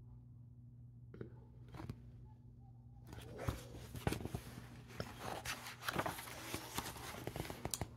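A glossy picture-book page being turned by hand close to the microphone: paper rustling and crackling with quick clicks, starting about three seconds in and lasting about five seconds. A faint steady low hum lies underneath, with two small clicks before the rustling.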